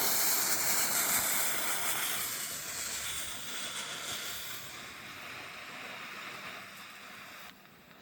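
Fuse-lit smoke bomb hissing as it pours out smoke: a loud hiss that starts suddenly, fades gradually, and drops off sharply near the end.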